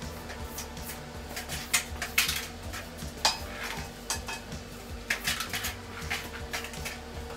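Irregular clicks and light metallic clatter of hand tools being handled, sharpest about two seconds in, over a faint steady hum.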